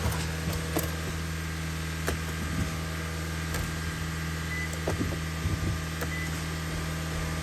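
Steady low hum of an idling car engine, with a few light clicks as the Nissan's push-button start is pressed during a jump start.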